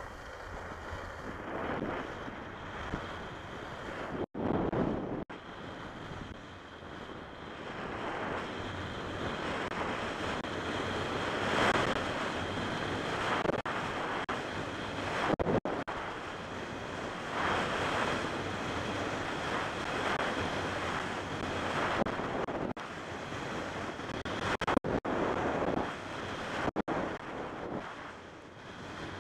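Wind rushing over the microphone during a fast descent of a groomed ski slope, mixed with the hiss and scrape of edges carving packed snow, swelling with each turn every couple of seconds. The sound cuts out for an instant a few times.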